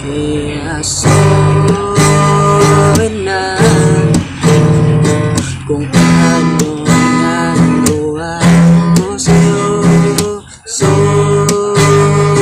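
Acoustic guitar music: strummed chords, each held about a second before the next.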